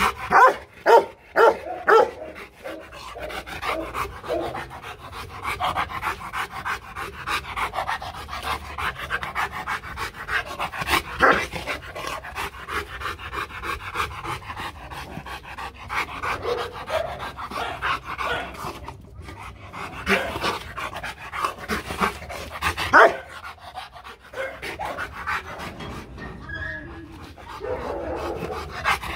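Rottweiler panting hard and fast, with a few loud barks near the start.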